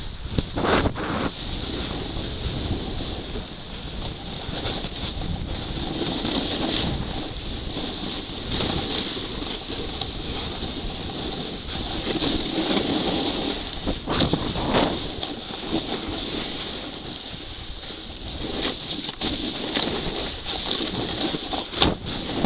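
Wind rushing over a body-worn action camera's microphone during a fast downhill ski run, with the edges hissing and scraping over packed snow. Short louder scrapes come about a second in, midway and near the end, as turns bite into the snow.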